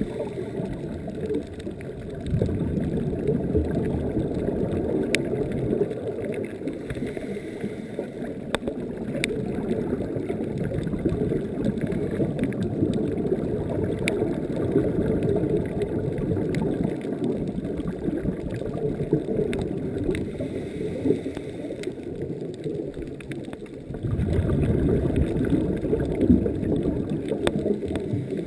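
Muffled underwater rumble of water moving around the camera housing, steady throughout and getting louder about three-quarters of the way through, with a few faint clicks.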